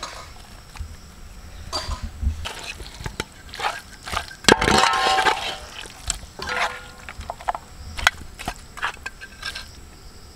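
A spoon stirring and scraping through thick, dry-cooked mutton in a large metal pot, with irregular clinks and scrapes, the loudest and longest scrape about halfway through.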